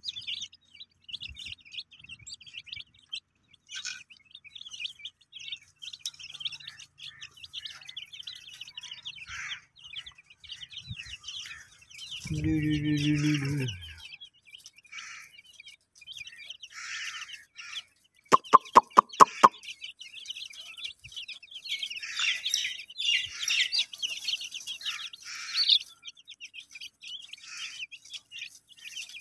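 Baby chicks peeping in quick, high chirps throughout. About twelve seconds in, a low drawn-out call sounds for under two seconds. Around eighteen seconds a quick run of about seven sharp clicks is the loudest thing heard.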